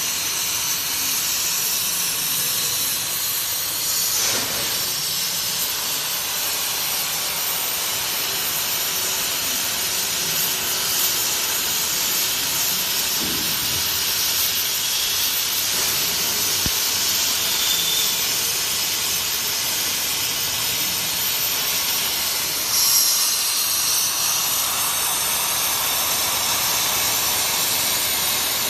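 CNC cutting torch cutting through thick steel plate: a steady hiss of the cutting jet blowing molten metal out of the kerf. A short louder flare comes late on.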